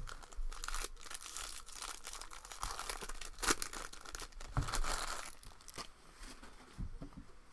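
Foil wrapper of a 2021 Bowman Draft trading-card pack being torn open and crinkled by hand, in irregular crackles with sharp snaps, loudest about three and a half seconds in and again around five seconds, then dying down.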